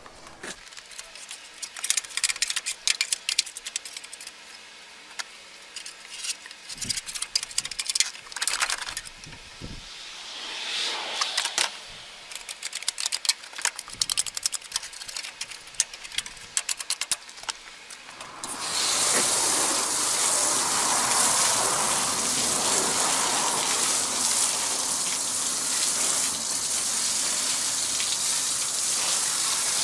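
A hand scraper rasping grease and grime off a truck's frame and engine bay, in irregular runs of quick strokes. About two-thirds of the way in, a pressure-washer spray starts and goes on as a steady, louder hiss of water blasting the engine bay.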